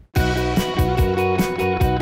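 Instrumental end-credits theme music for a cartoon, with a quick, steady beat. It starts abruptly after a moment's silence.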